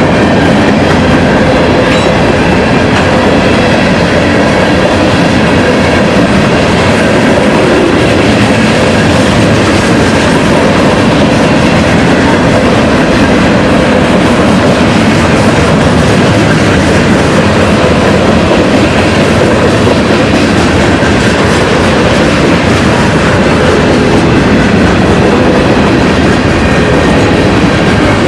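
Train cars rolling along the rails, a loud steady running noise of wheels on track.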